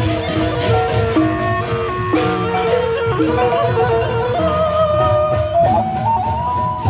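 Sasak gendang beleq ensemble playing on the march: a suling bamboo flute carries a stepping melody over booming drums, crashing hand cymbals and gongs.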